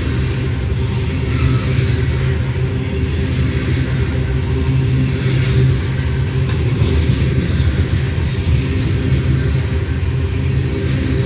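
Loaded covered hopper cars rolling slowly past on the rails, over the steady low drone of GE diesel locomotives working under load.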